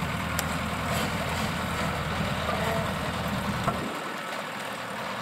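Diesel engine of a rice combine harvester running steadily as the machine moves. The deepest part of the rumble drops away about four seconds in.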